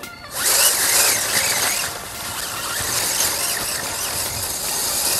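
Electric RC truck (Remo Hobby 1631 Smax) driving over dry fallen leaves: the motor and gears whine while the 3D-printed tyres crunch through and throw up the leaves in a loud, steady rustling hiss. It sets in suddenly just after the start.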